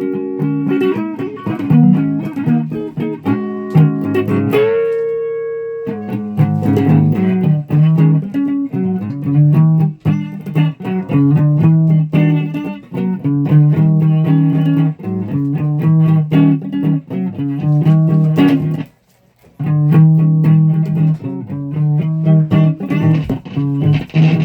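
Electric guitar playing a run of quickly picked single notes, with one note held for a moment about five seconds in and a brief stop about three quarters of the way through.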